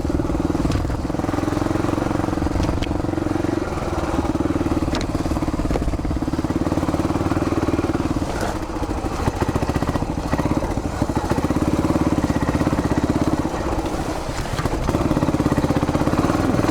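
1981 Yamaha XT500's single-cylinder four-stroke engine running under load while the bike is ridden, the throttle easing off briefly about four, nine and fourteen seconds in and opening up again each time.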